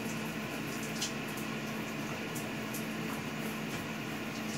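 Redstone ceramic space heater running on high, its fan blowing a steady rush of air with a low, even hum.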